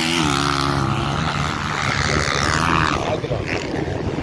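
Motocross bike engines running hard on the race track, the pitch climbing steadily and then falling away about three seconds in.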